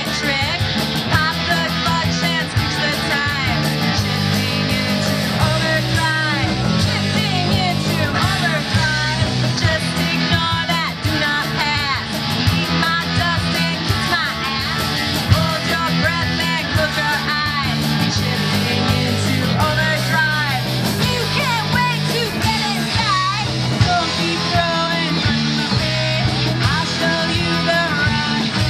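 Rock music with guitar, bass and a steady beat.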